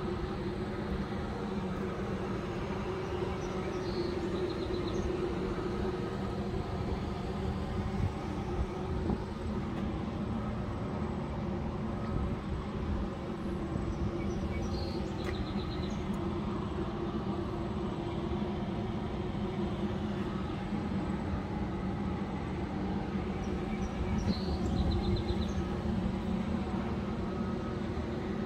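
A steady low machine hum with no breaks, with a faint short high chirp about every ten seconds.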